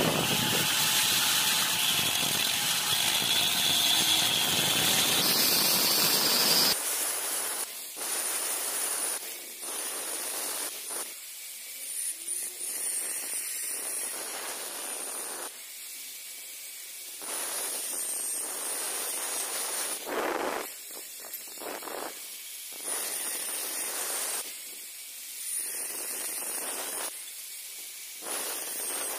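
Handheld angle grinder with a thin cut-off disc cutting through square steel tube: loud and steady for about the first seven seconds, then quieter stretches of cutting that stop and start every second or two.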